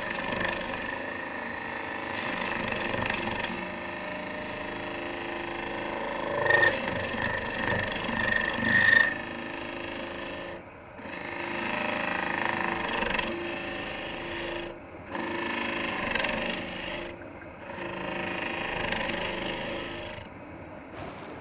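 Robert Sorby ring tool cutting into an end grain bowl spinning on a wood lathe: a continuous rough hiss of the tool shaving the wood over the lathe's running hum. It grows louder about six to nine seconds in and breaks off briefly several times in the second half.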